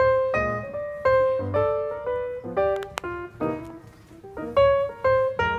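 Piano music: a melody of single struck notes and small chords, a few every second, each fading after it is struck.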